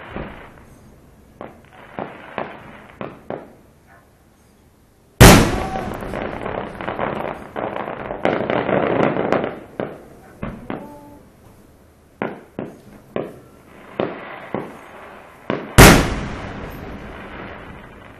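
Fireworks display: scattered sharp pops, then a very loud shell burst about five seconds in followed by several seconds of dense crackling. More pops follow, then a second very loud burst near the end that dies away slowly.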